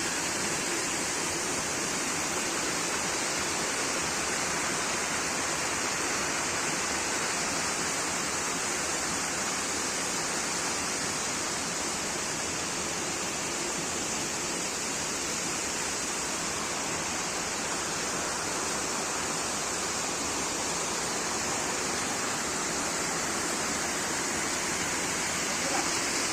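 Waterfall: falling water rushing steadily and evenly, with no break or change.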